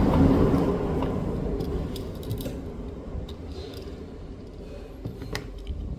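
Small handling noises at a repair bench: a rustle fading over the first second or so, then a few light, separate clicks and taps over a low steady hum.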